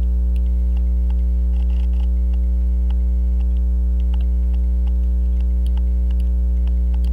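Loud, steady electrical mains hum with a ladder of overtones, unchanging throughout. Faint, irregular small clicks and ticks from handling the watch movement sit over it.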